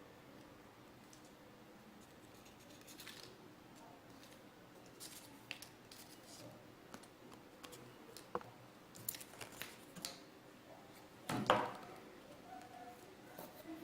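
Scissors snipping paper, along with scattered small clicks and rustles of crafting materials being handled. The loudest sound is a short knock about eleven and a half seconds in.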